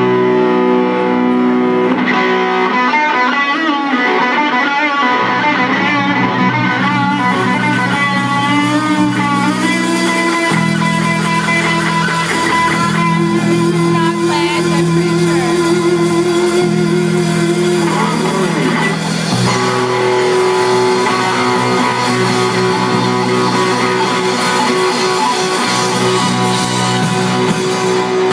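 Live rock band playing loud: electric guitar and bass guitar, the guitar notes bending and wavering. The low end grows heavier about ten seconds in.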